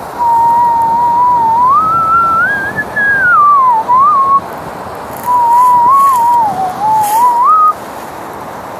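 A person whistling a wandering tune in two phrases, with a short break just after the middle, over a steady background rush.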